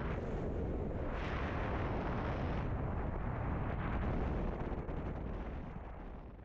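Freefall wind rushing over the camera's microphone, a dense buffeting noise that fades out near the end.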